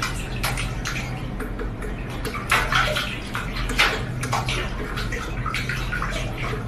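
Domestic cat pawing at water in a stainless steel kitchen sink, splashing and sloshing in irregular strokes over a steady low hum.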